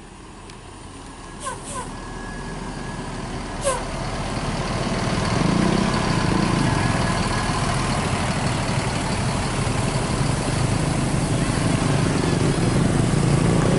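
A tour bus's diesel engine growing louder over the first few seconds as it approaches, then running loud and close. A few short, sharp sounds come in the first four seconds.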